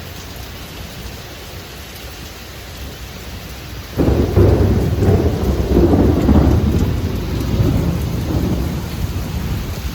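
Rain falling steadily, then about four seconds in a loud thunderclap breaks and rolls on as a long, low rumble that slowly eases.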